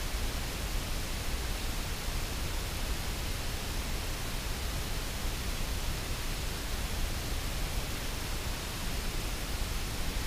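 Steady, even rushing noise with a strong low rumble and no separate events.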